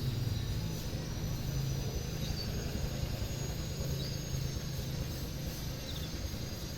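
A steady low rumble, like a distant engine, runs throughout. Faint short bird chirps come over it every second or two.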